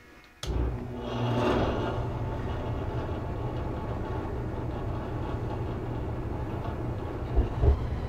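Older gas furnace's burners lighting with a sudden whoosh about half a second in, swelling for a second or so, then burning with a steady low rumble. The burners show a little flame rollout as they light, which the technician had suspected from the furnace's sound.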